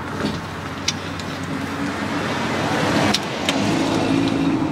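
A motor vehicle's engine running, its hum growing louder from about halfway through, with a few light clicks of small bolts and the aluminium trim panel being handled.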